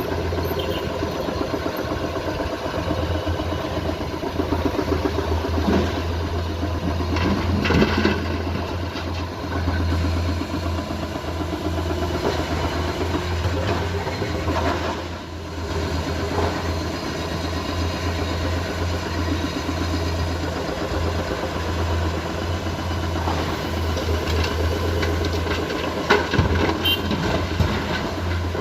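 Heavy diesel engine of a Komatsu PC210 hydraulic excavator running steadily under work, with a few sharp knocks and clatter about a third of the way in and again near the end.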